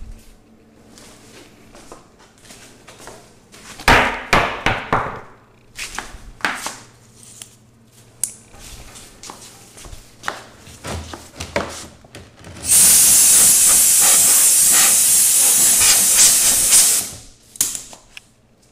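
Air-compressor blow gun blasting compressed air in a loud, steady hiss for about four seconds, starting about two-thirds through, blowing sanding dust off the rims of a three-wheeler. Before that there are scattered knocks and clatter, loudest about four seconds in.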